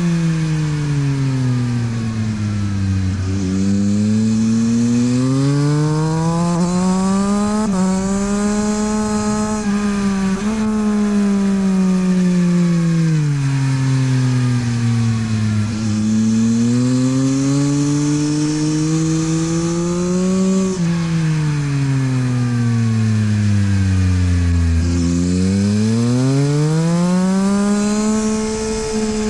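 Yamaha MT-09 SP's three-cylinder engine through a LeoVince exhaust, riding laps on a race track: the revs climb hard, then fall away as the bike slows for corners, about three times, with quick steps in pitch at the gear changes.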